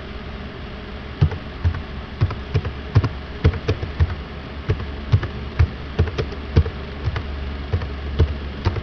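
Keystrokes on a computer keyboard, typed in an uneven run of sharp clicks starting about a second in, over a steady low hum.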